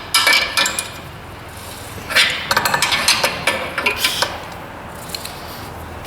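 Metal clinking of a crescent wrench on the T-bolts of a Kubota BX24 snowblower mount as they are loosened. The clinks ring and come in two clusters, a short one at the start and a longer one from about two to four seconds in.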